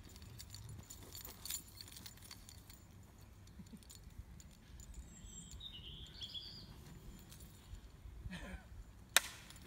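Light sparring blades in a duel: a few faint clicks, then one sharp, loud clack of a blade strike landing near the end, the hit that is called as strike one. A bird chirps briefly in the middle, over wind rumble on the microphone.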